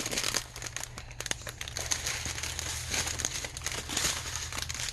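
Small plastic bags of diamond painting drills being rummaged through and handled, crinkling continuously.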